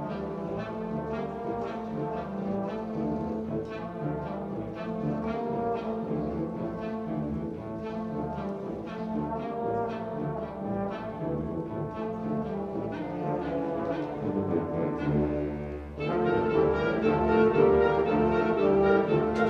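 School concert band playing, with the brass most prominent; the full band comes in louder about sixteen seconds in.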